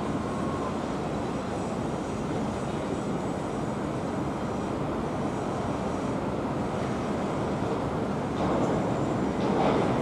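Distant high-speed train running along an elevated viaduct: a steady rushing rumble that grows a little louder near the end.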